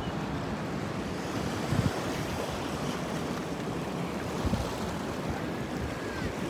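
Ocean waves washing against a rocky lava shoreline, a steady rush of surf, with a couple of brief gusts of wind on the microphone.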